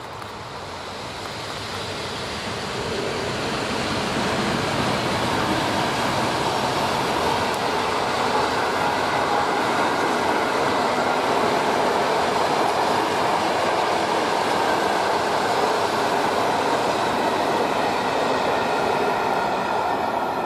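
Long-distance passenger train rolling past behind an EP07 electric locomotive. The coaches' wheels make a steady rushing rumble on the rails that builds over the first few seconds and eases off near the end as the last coach goes by.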